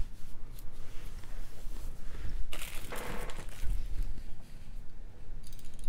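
Bead packets rustling and crinkling as they are picked up and handled, with light clicks of beads, loudest in a short rustle about halfway through.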